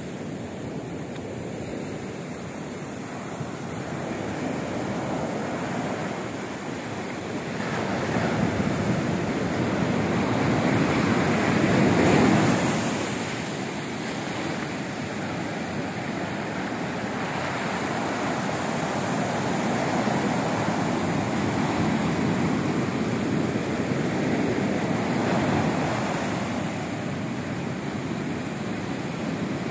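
Ocean surf: waves breaking and washing up the beach in sheets of foam, a continuous rushing that swells and ebbs with each wave, loudest about twelve seconds in.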